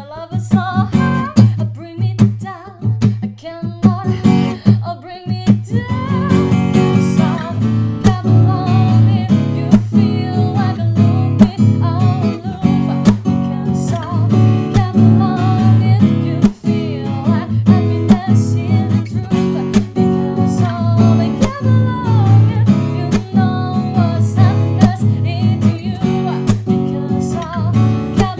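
Sqoe S200-FG OM-size acoustic guitar, with a solid cedar top and black walnut back and sides, played lightly for about five seconds and then strummed in a steady rhythm.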